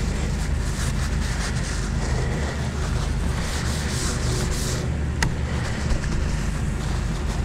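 Paper towel rustling and rubbing as steaks are patted dry on a wooden cutting board, over a steady low hum. A single sharp click about five seconds in.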